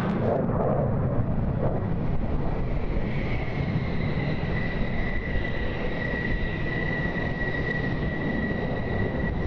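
F-16 fighter jet's turbofan engine running while the jet taxis: a steady low rumble with a high, steady whine that comes up clearly about three seconds in.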